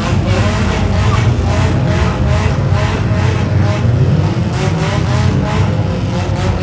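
Several race car engines running together around the track, a steady level with some engines revving up and down.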